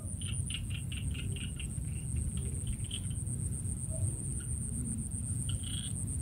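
Crickets trilling in a steady, high, finely pulsing drone over a low rumble. A quick run of short chirps comes in the first three seconds, and one more near the end.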